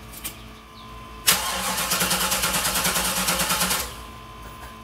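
Starter cranking the GMC school bus's gasoline engine for about two and a half seconds, with a rapid even pulsing as it turns over. It stops without the engine firing: the engine is getting no spark.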